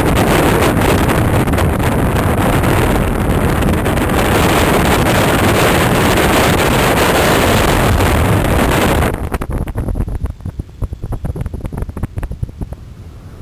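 Strong wind buffeting the microphone in flight, a loud, steady rush that drops off suddenly about nine seconds in to lighter, gusty flutter.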